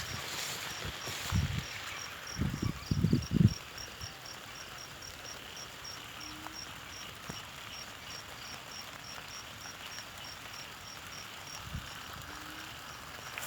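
Insect chirping steadily in short, evenly spaced high pulses, several a second. A few low thumps come in the first few seconds and are louder than the chirping.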